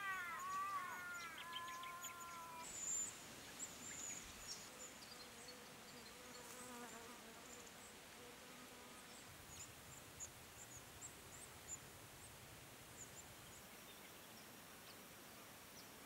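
Red-browed finches giving short, very high, thin calls, scattered through. Over the first couple of seconds another bird sings louder, lower, arching notes that stop suddenly.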